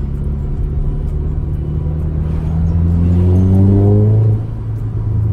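Straight-piped turbocharged four-cylinder TFSI engine of an Audi A3, with a 2.5-inch straight pipe from the O2 sensor back, accelerating under load. Its exhaust note rises in pitch for about two seconds, then drops off suddenly about four seconds in.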